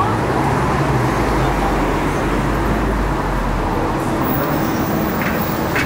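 Steady city street traffic: road vehicles running and passing with a continuous low rumble.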